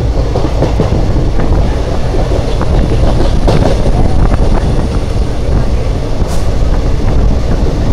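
Passenger train running along the track, heard from an open coach door: a steady rumble of wheels on rails with scattered knocks and rattles, and wind rushing on the microphone.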